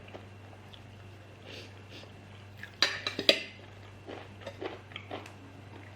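Utensils clinking and clattering against a plate in a short burst about three seconds in, followed by a few quieter clicks.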